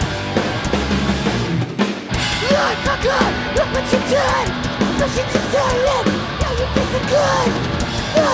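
Hardcore punk band playing live through a festival PA: distorted electric guitars, bass and drums. The low end drops out briefly about two seconds in, then the band comes back in with vocals over the top.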